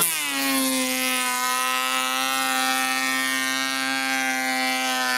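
An 18 V cordless electric planer with twin blades, cutting 1.5 mm deep into chipboard. Its motor pitch drops as the blades bite in, then it runs at a steady pitch under load.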